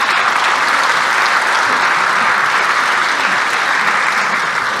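Applause from a large audience of lawmakers in an assembly hall: steady clapping that fades slightly near the end.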